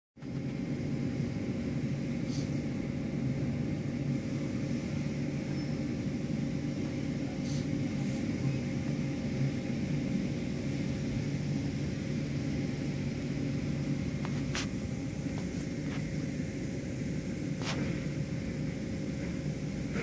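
Automatic car wash machinery running: a steady low rumble with a constant hum, and a few short sharp ticks.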